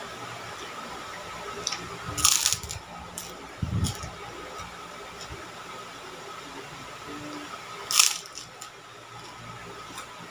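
Crisp white kerupuk cracker being bitten and chewed: crunches about two seconds in, a couple more near four seconds, and one sharp crunch near eight seconds, over a steady background hum and hiss.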